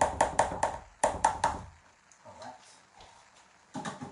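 Potato masher pressed repeatedly through chunky mashed avocado in a mixing bowl, knocking about four times a second in two short runs, with a short clatter of knocks near the end.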